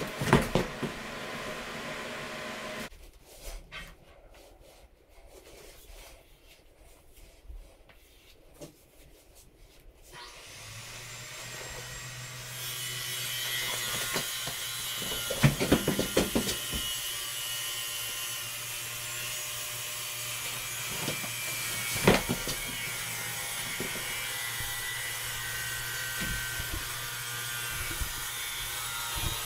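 An electric tile saw motor starts up a few seconds in and then runs steadily with a bright, even whine, with a few sharp knocks over it.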